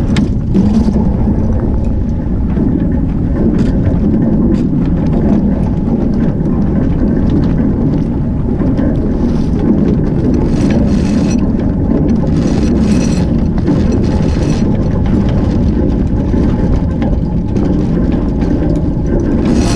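Wind rumbling steadily on the microphone while an Albin Vega sailboat heels under sail, its hull rushing through the water, with bursts of spray hissing along the bow wave a little after the middle.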